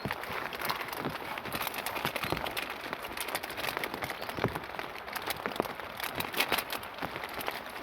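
Heavy rain falling steadily: a continuous hiss of rain, dense with sharp individual drop hits.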